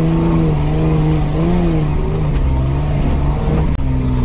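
Off-road 4x4's engine running under way on a dirt trail. Its note holds steady, with a brief rise and fall about a second and a half in. Near the end the sound cuts out for an instant and comes back at a lower pitch.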